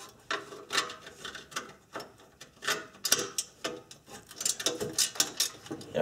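Ratcheting wrench clicking in short irregular runs as it turns a tight bolt in a cramped spot, the clicks coming quicker near the end.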